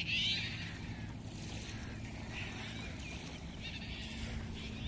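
A steady low motor hum with birds chirping over it, the loudest chirp at the very start.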